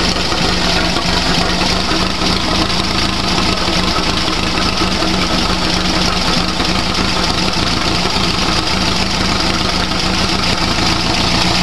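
Air-cooled VW Beetle flat-four engine idling steadily, all four cylinders firing, fed with hydrogen from an onboard electrolysis generator.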